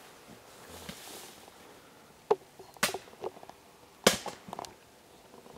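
A few sharp knocks, irregularly spaced, the loudest about two and four seconds in.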